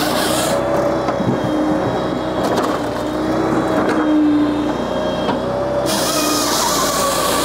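Japa 395 firewood processor running on tractor PTO power: a steady engine and hydraulic drone with a few knocks of split firewood dropping. A rasping hiss of wood tumbling in the roller disc cleaner cuts out about half a second in and comes back near the end.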